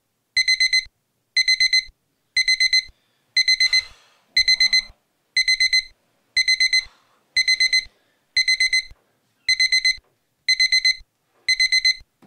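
Electronic wake-up alarm beeping: a short cluster of rapid high beeps repeating about once a second, twelve times, then stopping.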